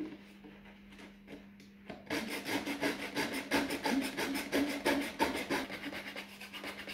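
Flush-cut saw cutting a wooden piece flush with the rim of a cardboard Pringles can, in quick back-and-forth strokes that start about two seconds in.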